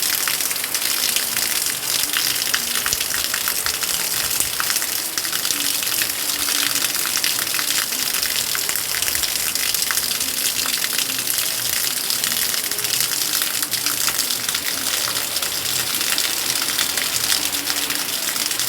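Heavy rain pouring down in a steady hiss, with dense pattering drops.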